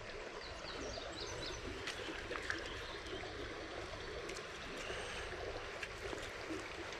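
Creek water running steadily, with a few faint high chirps about a second in.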